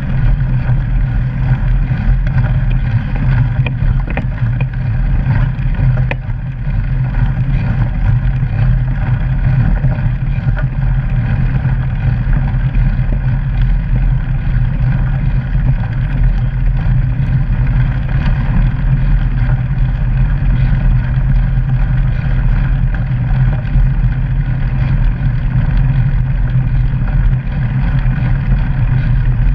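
Steady low rumble and rushing noise of a mountain bike rolling along a wet lane and trail, picked up by a camera mounted on the bike, with a few short knocks from the bike jolting over the ground.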